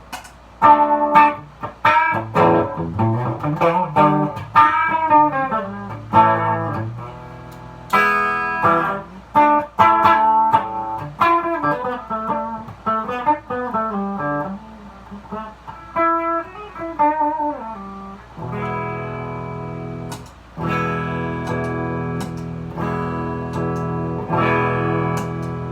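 Electric guitar with a Seymour Duncan Invader bridge pickup played through a Blackstar tube amp's clean channel with the voice switch on, giving a bright clean tone. Picked single notes and arpeggios for about the first 18 seconds, then strummed chords left to ring.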